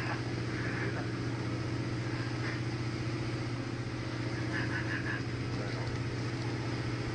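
A machine engine running steadily: a low, even drone with a constant hum, unchanging throughout.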